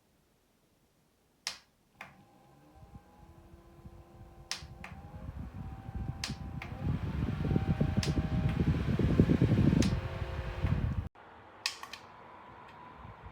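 A rechargeable USB clip fan is clicked on and stepped up through its speeds with its button. The motor's hum rises in pitch with each click, and the rush of air grows loud. It cuts off abruptly about eleven seconds in, followed by two more clicks and a quieter hum.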